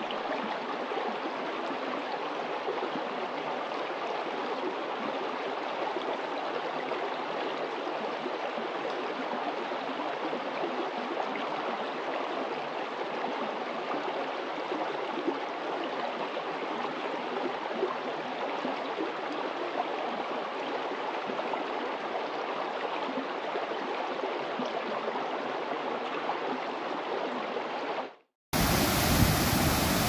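Shallow rocky stream running, a steady even rush of water. Near the end it cuts off abruptly, and a louder, deeper rush of white water pouring down a rocky cascade takes its place.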